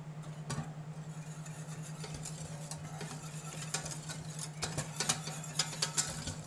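Wire balloon whisk clicking and scraping against a stainless steel saucepan while butter and flour are whisked into a roux, the ticks starting about two seconds in and getting busier near the end. A steady low hum lies under it throughout.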